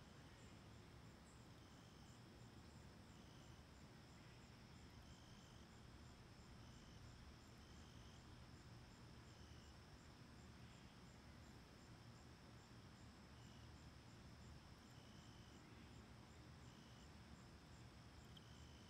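Faint insect ambience, crickets: a steady high buzz with a regular high ticking and short chirps every second or two, over a low hiss.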